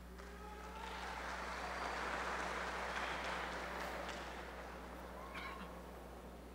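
Audience applauding after the anthem, swelling over about two seconds and then dying away, with a few short high-pitched calls from the crowd over a steady low hum.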